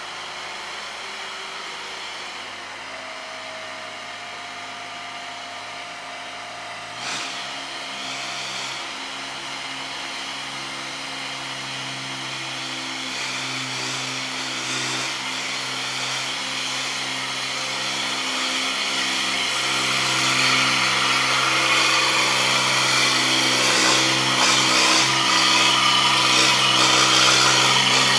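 An engine running steadily, growing gradually louder, with a single sharp knock about seven seconds in.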